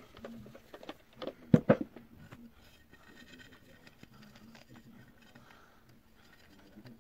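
Handling noise: two sharp knocks about a second and a half in as something is picked up or put down, then faint rubbing as a cloth wipes over a tablet in its case.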